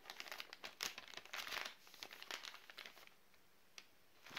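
Plastic sleeve of an MRE flameless ration heater crinkling as it is unfolded and handled, in irregular bursts of rustling over the first three seconds, then quieter with a single short tick near the end.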